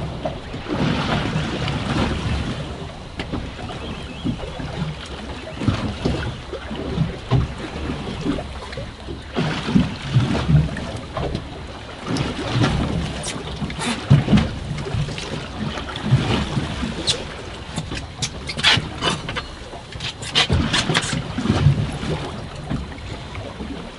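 Wind buffeting the microphone and choppy water slapping around a small fishing boat, in uneven gusts. A run of sharp clicks and rattles from gear on board comes near the end.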